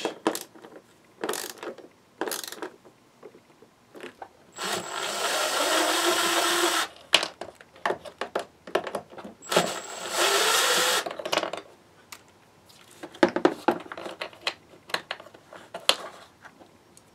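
A quarter-inch hand ratchet clicking, then a Milwaukee M18 cordless impact driver running in two short runs, about five and ten seconds in, its pitch rising in each as it drives fasteners into a plastic door-panel bracket. Scattered clicks and knocks of plastic parts being handled follow.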